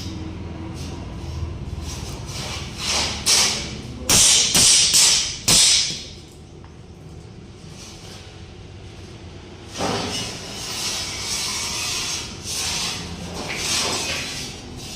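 Hammer strikes on steel in the fabrication work: a quick run of about six sharp metallic blows a few seconds in, followed after a pause by a rougher, uneven scraping noise near the end.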